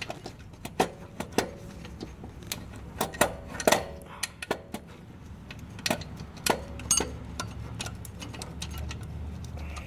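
Irregular metallic clicks and clinks of a new aftermarket alternator being wiggled against its mounting bracket on a 2012 Honda Civic while its second mounting bolt is threaded in by hand. The clicks thin out over the last few seconds, over a low steady hum.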